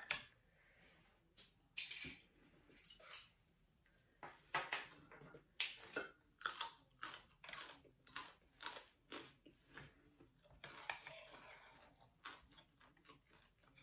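Close-up eating sounds of raw oysters with fresh greens: wet chewing and irregular mouth clicks and crunches, with occasional light clinks of chopsticks on the oyster plate.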